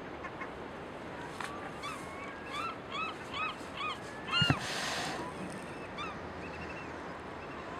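Gulls calling: a run of short, repeated arched calls at about two or three a second, then one louder call with a brief low thump about four and a half seconds in.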